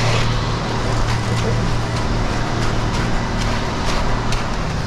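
Ready-mix concrete truck's diesel engine running steadily with a low drone while it discharges concrete. Over it, intermittent scrapes of rakes dragged through wet concrete.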